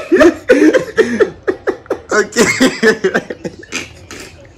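A person's voice making loud sounds without words, in short uneven bursts.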